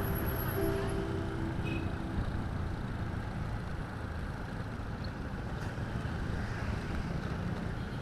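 Steady road noise from a moving vehicle: a low engine and tyre rumble with rushing wind.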